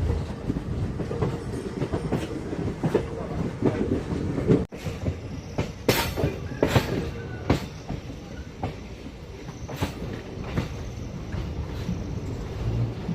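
Express train running on the rails, its wheels clacking repeatedly over the rail joints above a steady rumble, with a brief break about five seconds in.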